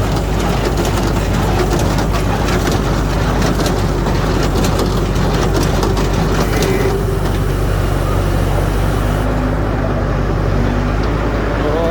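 Hay baler working with its engine running: a steady low drone under many irregular mechanical knocks and clatters.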